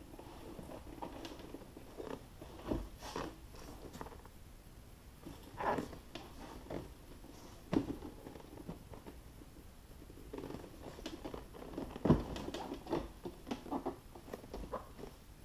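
Metal amplifier box being shifted and set in place on a carpeted car floor: scattered knocks, scrapes and clicks, the loudest knock about twelve seconds in.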